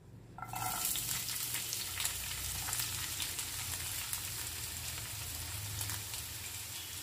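Chopped onions tipped into hot oil in a frying pan, starting to sizzle about half a second in, then a steady sizzle with fine crackles.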